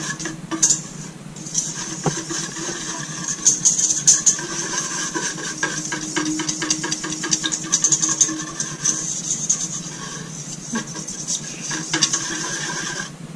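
Wire whisk clicking and scraping rapidly against the inside of a stainless steel mixing bowl, whisking guar gum and glycerin into a smooth slurry so the gum dissolves without clumps. The whisking stops just before the end.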